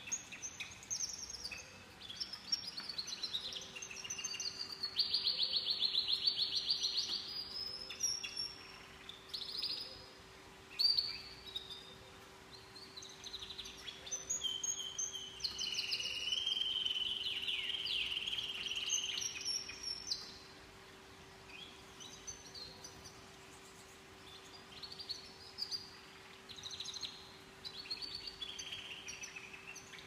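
Caged canaries singing long warbling phrases of fast trilled rolls, mixed with chirps, loudest about five to seven seconds in and again from about fifteen to twenty seconds in. A faint steady hum runs underneath.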